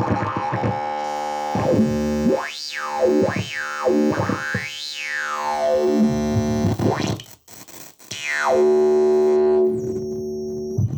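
Buzzy oscillator tone run through an LTC1060 switched-capacitor filter, its resonant cutoff swept up and down several times by changing the clock frequency, giving a wah-like synthesizer sweep. The sound drops out briefly about seven seconds in, then comes back with a falling sweep and settles on a steady, lower filtered tone.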